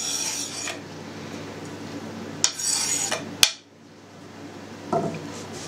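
Kitchen knife scraping chopped onion across a cutting board onto a plate, twice, followed by a single sharp knock as the knife or board is set down.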